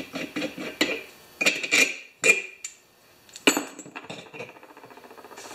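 Light metallic clinks and knocks from a small yard tractor wheel and its steel axle shaft being handled and turned over. There are two sharper knocks, one a little past two seconds in and one about three and a half seconds in.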